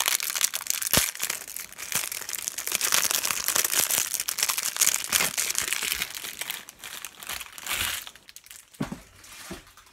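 Clear cellophane wrapper of a 2018 Topps Update baseball card cello pack crinkling as it is torn open and peeled off the stack of cards. The crackle dies down about eight seconds in.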